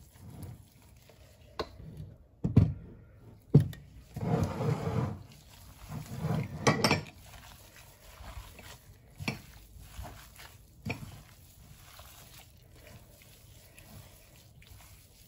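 Gloved hand kneading raw ground pork and boiled pork skin in a pot: wet squelching and squishing of the meat, with several sharp knocks of the hand against the pot.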